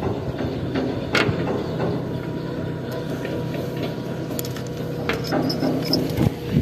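Steady low engine drone, with scattered knocks and clicks over it; the sharpest knock comes about a second in.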